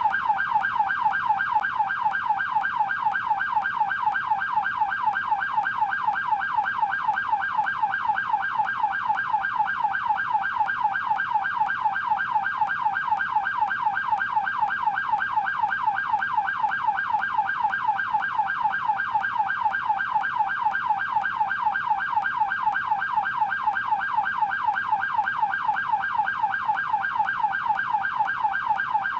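Canadian police car electronic siren in yelp mode: a rapid, steady warble sweeping up and down in pitch several times a second, without a break.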